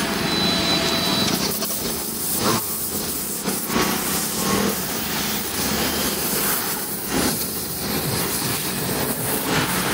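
Gas welding torch flame hissing steadily as it heats and welds a car's steel floor panel along the rocker panel.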